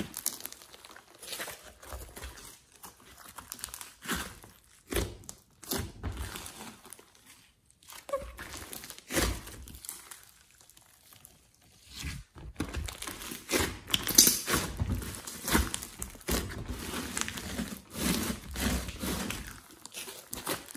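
Hands squeezing, stretching and folding a large lump of slime mixed with clay and glitter, giving irregular sticky clicks, crackles and pops. It goes quieter twice in the middle and is busiest in the second half.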